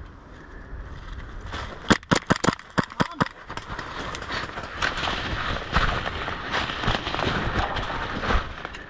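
A quick, uneven string of about eight sharp cracks over a second and a half, airsoft gunfire during a game. It is followed by several seconds of rough rustling noise with scattered ticks.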